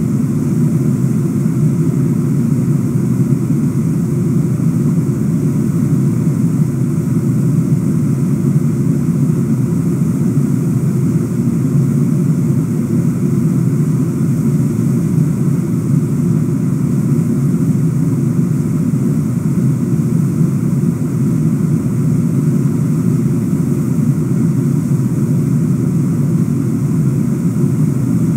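Brooks River's fast water rushing over shallow rocks: a loud, low, even rush with no change.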